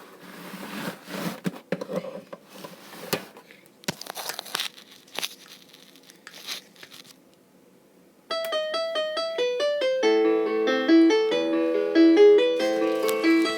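Rustling and clicking handling noise for about eight seconds, then a plinky electronic keyboard tune from a Hasbro I-Cat robotic cat toy starts suddenly and plays on as a quick run of notes.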